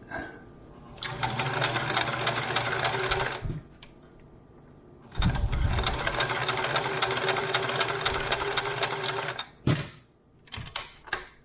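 Sewing machine stitching in two runs, the first about two and a half seconds long and the second about four seconds, followed by a few sharp clicks near the end.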